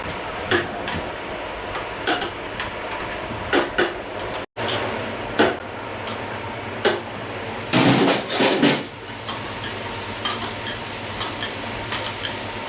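Metal tools and parts clinking and knocking at irregular intervals, with a louder cluster of strikes about eight seconds in.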